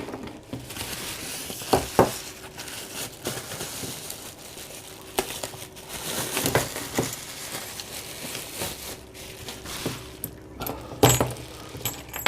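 Crinkling of parcel packaging as padlocks are lifted out, with sharp clicks and knocks of the metal locks being handled, the loudest about 11 seconds in.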